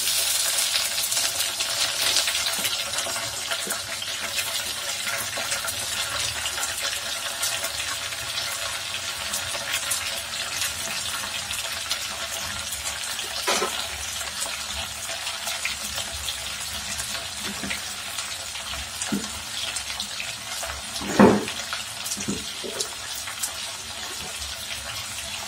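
Chopped tomatoes sizzling in hot oil in a stainless steel pot, starting suddenly as they go in and slowly easing off. A few short knocks of the steel ladle against the pot, the loudest about 21 seconds in.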